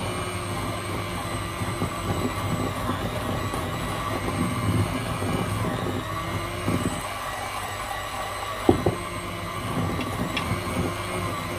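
Handheld electric mixer running steadily with a constant motor whine, its beaters creaming butter and sugar in a glass bowl. A brief sharp knock about two-thirds of the way through.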